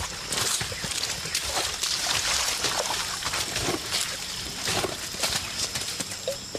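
Several people on foot pushing through rainforest undergrowth: footsteps on the forest floor and packs and brush rustling, heard as an irregular string of crunches and snaps. Underneath runs a steady high insect drone.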